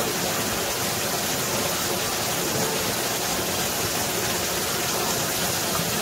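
Waterfall rushing steadily, an even roar of falling water.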